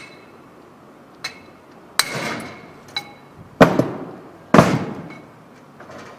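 Hammer blows on a bicycle's metal parts: about six irregular strikes, the three loudest in the second half each followed by a metallic ring that dies away.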